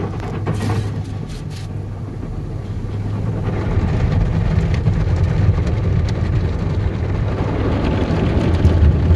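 Tunnel car wash heard from inside the truck's cab: water and foam spraying and washing over the windshield and body over a steady low hum. The spraying grows louder about three and a half seconds in.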